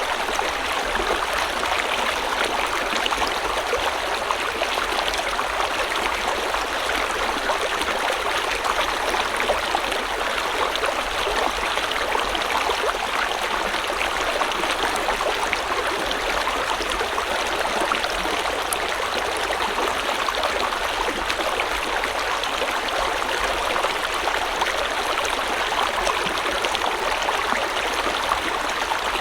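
River water flowing and splashing steadily over stones, an even rushing with a patter of small splashes and no change in strength.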